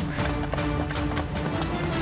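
Background film score with a held note, over the footsteps of several people running.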